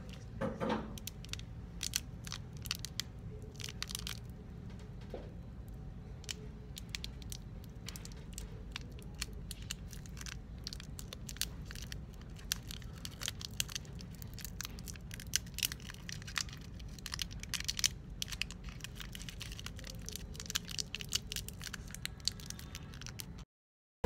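Irregular small clicks, crackles and rustles of things being handled, over a steady low hum; the sound cuts out to silence near the end.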